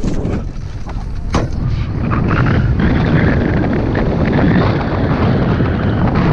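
Heavy wind buffeting on the microphone of a camera mounted on a hang glider as it launches off the ramp and picks up airspeed. There is a sharp knock a little over a second in, and the rush grows louder about two seconds in, then stays heavy.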